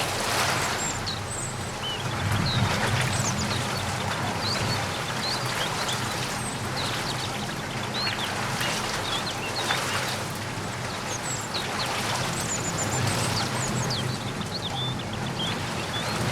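Steady rain falling, with many short, high bird chirps scattered through it and a low rumble underneath.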